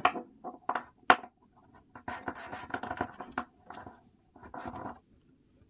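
Hands handling stiff printed paper cards: two sharp taps in the first second, then scratchy rustling and sliding of card against card, with a shorter rustle near the end.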